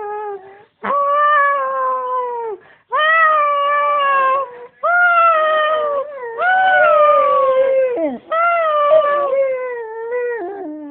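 A dog howling in about five long calls with short breaks between them, each held near one pitch with small bends up and down.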